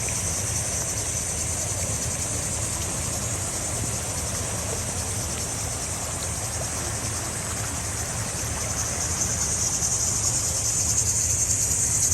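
Steady rushing noise of a flooded creek running high, with a continuous high-pitched hiss above it that grows a little louder over the last few seconds.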